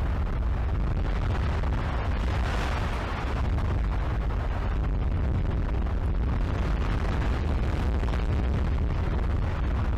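Strong wind buffeting the microphone: a loud, steady low rumble with a rushing noise above it.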